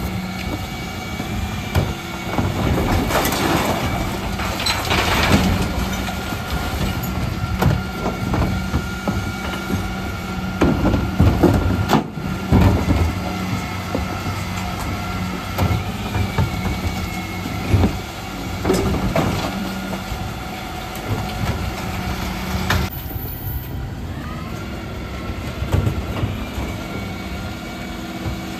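Dennis Elite 6 Twinpack refuse truck at work on recycling: its Terberg bin lifters tip blue bins, with cans, plastics and glass clattering into the hopper and the plastic bins knocking, over the steady whine and run of the truck's machinery.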